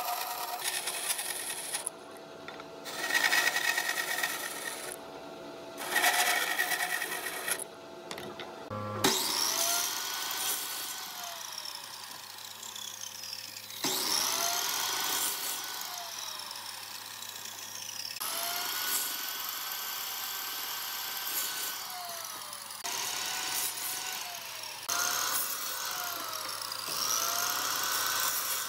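A bandsaw cutting into a softwood board in two short passes. Then a miter saw starts again and again: each time the blade spins up, cuts into the board and winds down, about every four to five seconds, making a row of side-by-side kerfs.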